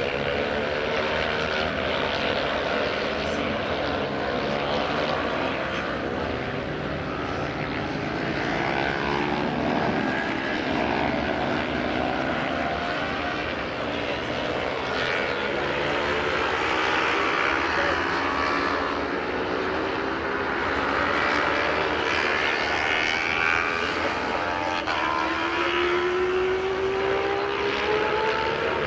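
Several racing motorcycle engines running hard around the circuit, their overlapping notes climbing under acceleration and dropping as the riders shift and brake. Near the end one engine's note rises steadily as it pulls away.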